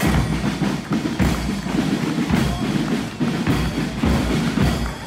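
Marching band playing, with drums beating.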